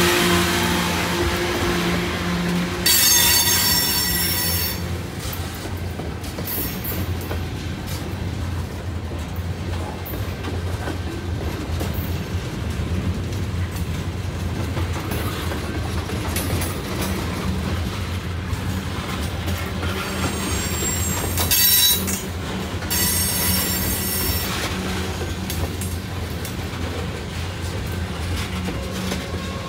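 Freight train cars rolling past with a steady low rumble, their wheels squealing high-pitched in bursts about three seconds in and again near the end.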